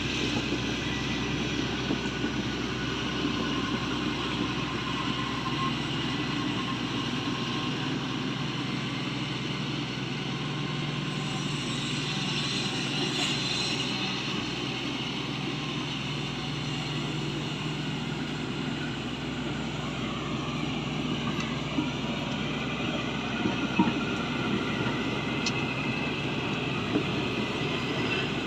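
Shantui excavator's diesel engine running steadily, with a few sharp knocks near the end.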